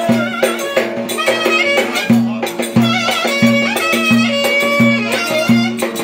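Live Turkish folk dance music: a clarinet plays a wavering, ornamented melody over a steady beat on a large frame drum, with a banjo-style string instrument being plucked along.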